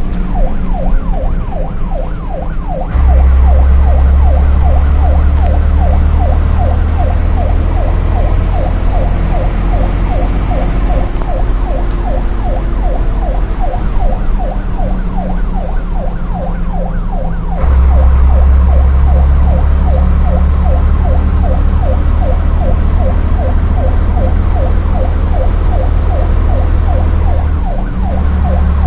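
Fire engine's siren in fast yelp mode, heard from inside the truck's cab: a quick, even warble rising and falling several times a second. Under it runs the truck's heavy low rumble, which jumps louder about three seconds in and again past halfway.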